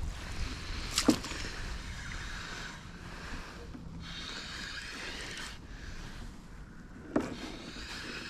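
Water lapping against a plastic kayak hull, with wind on the microphone. Two sharp knocks, one about a second in and one near the end.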